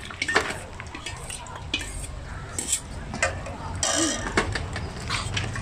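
Metal spoons scraping and clinking against tin cans and a metal tray as grilled egg is scooped out of the cans, in scattered short clicks.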